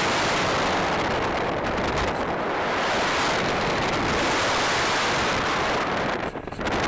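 Wind rushing over the microphone of a small camera riding on a radio-controlled plane in flight, a steady loud buffeting, briefly quieter near the end.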